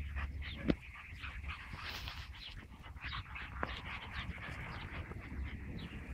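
Border collie puppies making many short, high, faint whines and yips as they play. There is a single knock about a second in.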